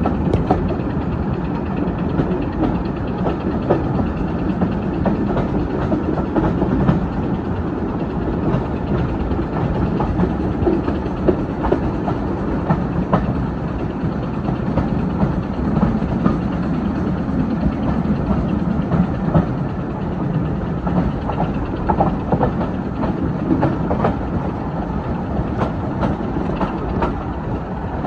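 Passenger coach of a diesel-hauled train running along jointed track, heard from the open window of the coach. A steady low rumble of wheels on rails is broken by irregular clicks and knocks.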